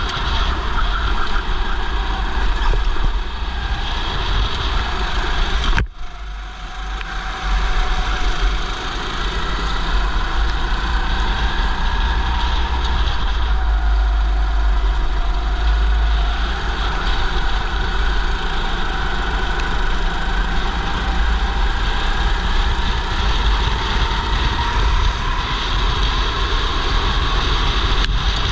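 Racing kart engine running under a heavy low rumble of wind on the helmet, its note rising and falling with speed through the corners. About six seconds in there is a sharp click, and the sound drops off briefly before the engine picks up again.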